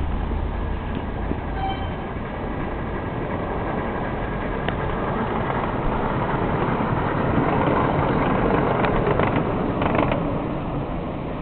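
Miniature ride-on train running on its small track, a steady rolling rumble with light clicks, louder from about two-thirds of the way through as it comes close.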